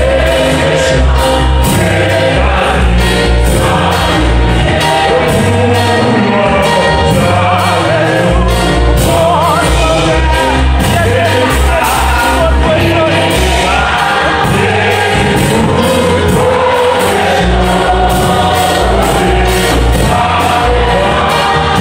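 Church worship team and congregation singing a French gospel hymn together over amplified keyboard accompaniment, with a steady beat of about two strokes a second and a heavy bass.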